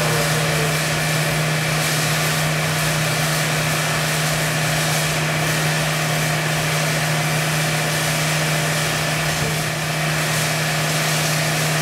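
Steady machine hum of the hydraulic loading system running a fatigue test on a CFRP-repaired prestressed concrete girder: one strong low drone over an even hiss.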